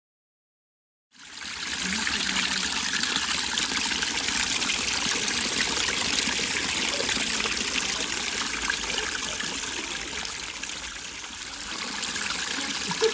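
Water running steadily over a small garden pond waterfall, coming in about a second in after silence.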